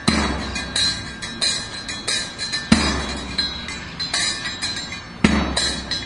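Drum groove: a rhythmic drum pattern of quick, bright strikes with a deep low hit about every two and a half seconds, three of them in all.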